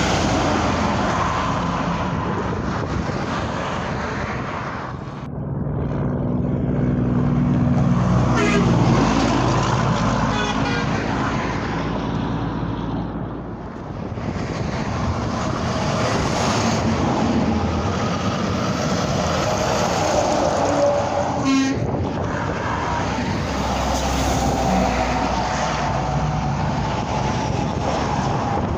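Semi trucks passing at highway speed in continuous traffic. A held horn-like chord sounds from about five to eight seconds in, its pitch dropping as the truck goes by.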